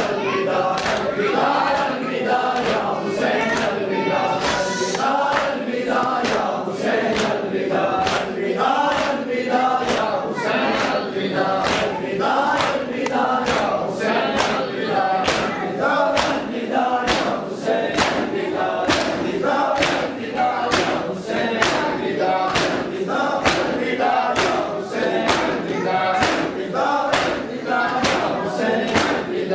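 Crowd of men chanting a Muharram lament in unison while beating their chests together in a steady rhythm. The strikes land a little more than once a second.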